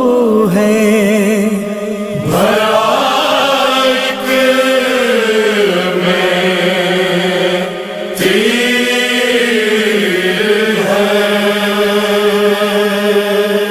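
A man chanting a nauha, a Shia lament, in long drawn-out notes that slowly rise and fall, breaking off briefly for breath about two and eight seconds in.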